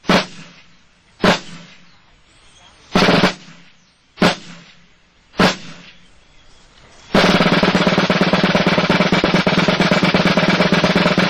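Drum music: five heavy single drum strikes about a second apart, then a snare drum roll of about four seconds that stops abruptly.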